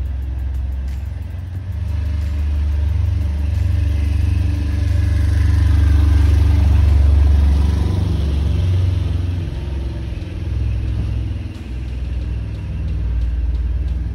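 Low rumble of street traffic, swelling to its loudest around the middle and easing off toward the end.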